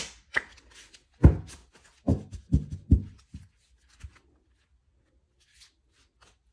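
A deck of large oracle cards being shuffled by hand: a run of card taps and slaps, about half a dozen in the first four seconds, then faint card sliding and ticks as the cards are spread out.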